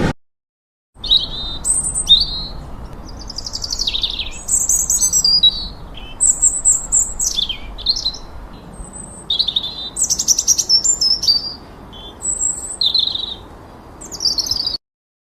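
European robin singing: a string of varied high, warbling phrases separated by short pauses, over a faint steady hiss. The song starts about a second in and stops just before the end.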